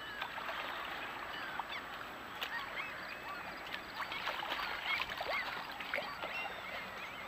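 Many birds chirping and calling, with soft paddle splashes from a small inflatable boat.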